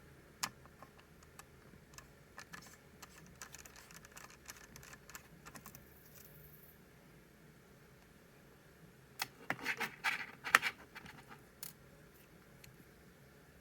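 Small screwdriver working screws out of a laptop's hard-drive bay: faint scattered clicks and scratching, then a louder clatter of clicks and knocks about nine to eleven seconds in.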